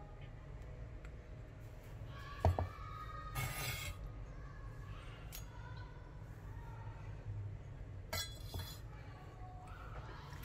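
Kitchen handling sounds over a low steady hum: a sharp clink with a brief ring about two and a half seconds in, then short scraping rustles about a second later and again near the end as a plastic tofu tub is handled on a wooden cutting board.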